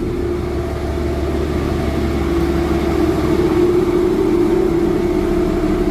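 Jeep XJ engine running, driving its belt-driven AC compressor that has been converted to an on-board air compressor and is pumping air into a tire: a steady mechanical drone with one strong steady tone over a low hum.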